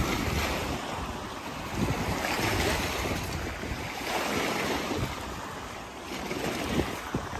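Small lagoon waves washing and breaking against a rock breakwater, swelling and easing every couple of seconds, with wind buffeting the microphone.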